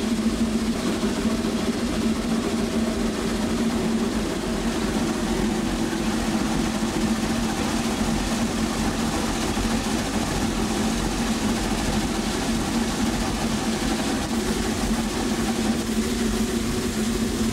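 Inside the cab of a Lima-built narrow-gauge Shay geared steam locomotive under way: a steady hiss and rumble with a constant low hum, no clear beat.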